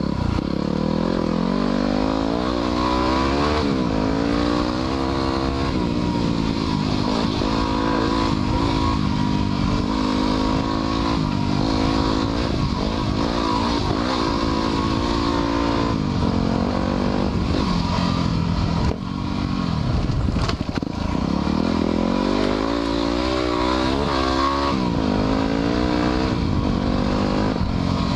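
2010 Yamaha WR250R's 250 cc single-cylinder four-stroke engine being ridden on a dirt trail, its revs rising and falling over and over as the throttle is worked and gears change, with a short drop in engine sound about two-thirds of the way through.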